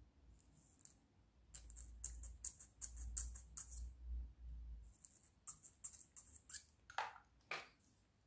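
A fine metal pick scraping and clicking against a small 3D-printed plastic puzzle piece, in quick irregular runs of faint, scratchy clicks. Two louder plastic knocks come near the end as the model is handled.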